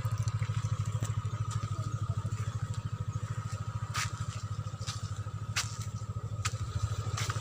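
Yamaha Aerox scooter's single-cylinder engine idling with a fast, even putter, with a few faint clicks.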